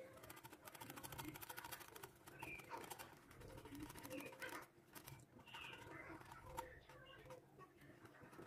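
Faint, rapid clicking and sloshing of a wire whisk beating a thick flour batter in a glass bowl, the tines tapping against the glass.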